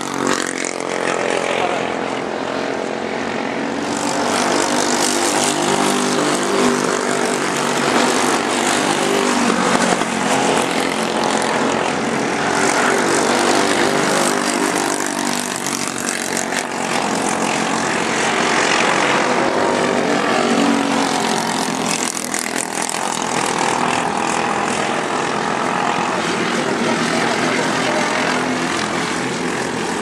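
Racing kart engines running at speed around the track, their buzzing note swelling and fading as karts go by.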